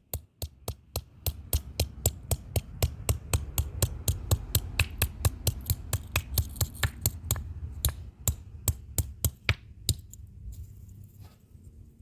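Rapid, repeated hammer blows on a small iPhone 4/4S speaker module, sharp knocks at about four or five a second, stopping shortly before the end.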